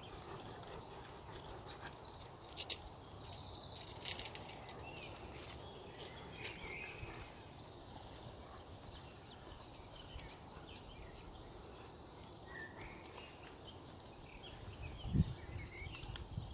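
Outdoor background noise with a steady low rumble and faint, short bird chirps now and then. A low thump near the end.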